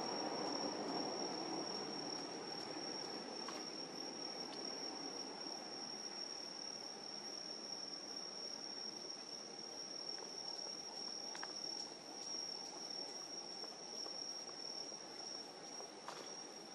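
Night insects trilling steadily in one high, unbroken note. Under them, a low distant rumble fades away over the first few seconds.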